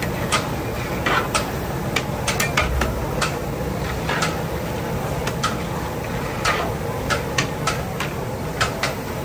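Metal utensils clinking and knocking against pots and plates in irregular sharp strikes, a couple a second, over steady background noise.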